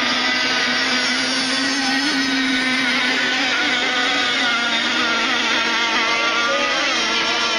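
Several radio-controlled racing boats running flat out on the water. Their motors give a steady, high-pitched buzz, with pitches that waver and cross each other as the boats swing through the course.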